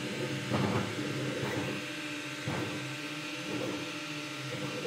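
FLSUN T1 delta 3D printer printing. Its stepper motors drive the print head around and are fairly noisy, with uneven surges about once a second over a steady hum.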